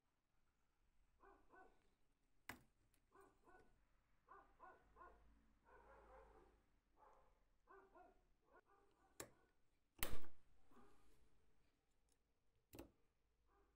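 Faint short animal calls, mostly in quick groups of two or three, throughout. Several sharp clicks and knocks of the metal flashlight parts being handled come between them, the loudest about ten seconds in.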